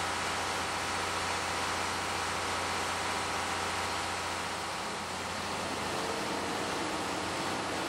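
Steady hiss of steam with a low hum and no exhaust beat, from the C57 steam locomotive; the hum fades about five seconds in.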